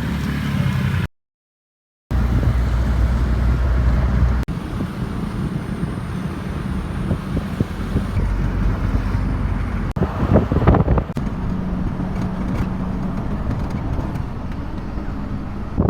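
Motor vehicle running, with steady engine hum and road noise. It is broken by a second of silence about a second in, and from about four seconds in it turns into a rougher, noisier rumble.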